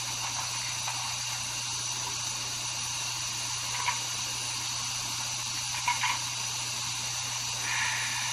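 Steady hiss with a low hum, and a few faint clicks of plastic blocks being handled at a shape-sorter toy.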